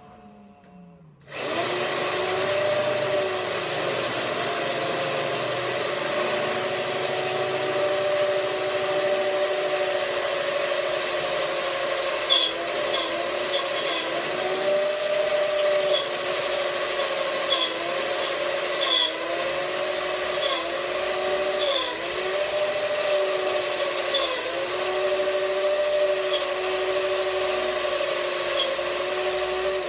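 Handheld power drill drilling out rivets in a steel vehicle chassis frame. The motor starts about a second and a half in and runs steadily, its pitch dipping briefly several times as the bit bites, with a few short high chirps along the way.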